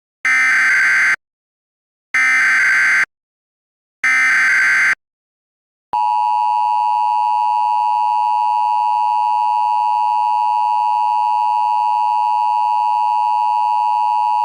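Emergency Alert System header: three SAME data bursts, each a warbling electronic burst about a second long and a second apart, then about six seconds in the steady EAS attention tone begins and holds, announcing an alert message.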